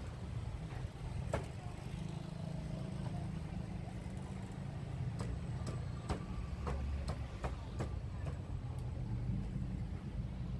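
Steady low rumble of street traffic, with sharp clicks and taps over it: one about a second in, then a string of them from about five to eight seconds in.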